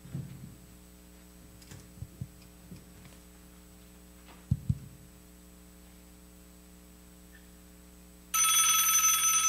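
A phone rings loudly near the end, a ringtone of several steady high tones that starts suddenly, opening a staged phone call. Before it there are a few soft bumps and two low knocks about halfway through.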